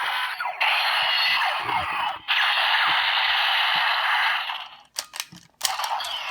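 Electronic sound effects played loudly through a DX Break Gunner toy's small speaker, in segments with short breaks, with a few sharp plastic clicks from handling the toy about five seconds in.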